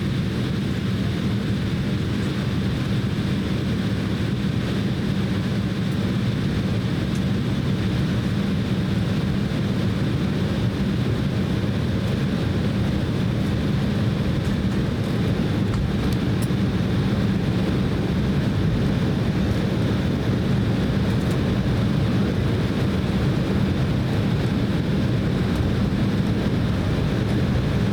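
Steady cabin noise inside an Embraer E190 airliner on the ground: an even hum of the engines and air conditioning, strongest in a low band, with no spool-up or change in level.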